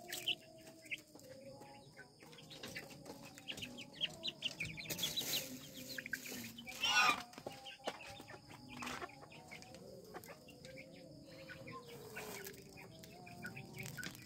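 Bangkok game chickens clucking softly with low, wavering calls, over many short sharp ticks typical of pecking at feed. A brief louder burst comes about seven seconds in.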